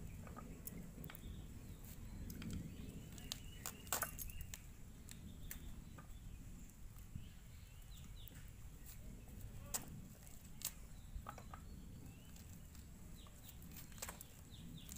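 Scattered sharp clicks and light knocks from ripe jackfruit being cut with a curved blade and pulled apart by hand, with faint chirps in the background.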